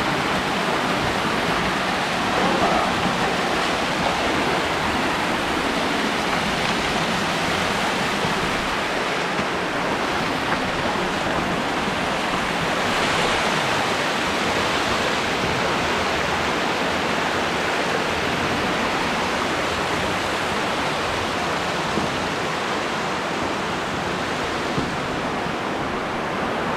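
Underground river in a cave, a steady rush of flowing water.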